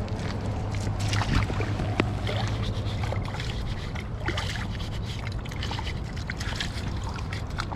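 Clothing rustling and rubbing against a body-worn action camera, with many scattered clicks and crackles over a steady low rumble.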